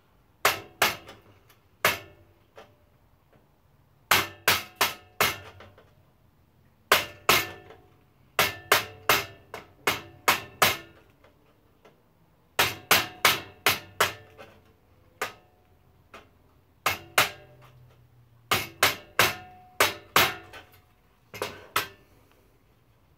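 Hammer blows on a steel chisel in quick bursts of two to five strikes with short pauses between, each strike ringing with a metallic tone, chipping off a stuck chunk of metal.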